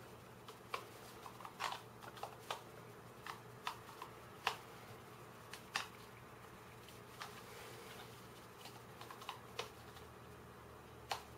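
Faint, irregular clicks and taps of small 3D-printed plastic puzzle pieces being handled and pushed into place with a screwdriver, fewer in the middle stretch. A low steady room hum lies under them.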